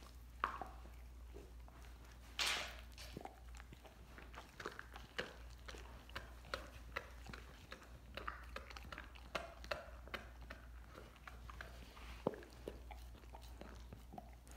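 A dog gnawing and chewing a raw lamb leg: irregular crunches and clicks of teeth on meat and bone, with one louder crunch about two and a half seconds in.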